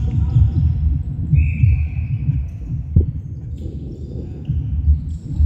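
Netball play on a wooden sports-hall court: irregular dull low thumps of players' feet and the ball. A high steady tone lasts about a second, starting a second in, and a single sharp knock comes about three seconds in.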